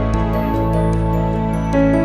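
Background music: soft sustained chords over a deep bass, with light chiming notes on top and a chord change near the end.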